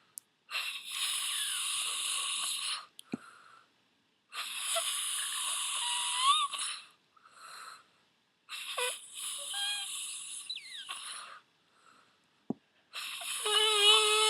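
A person snoring: four long, wheezy, hissing breaths about every four seconds with quiet pauses between, the last one carrying a wavering whistle.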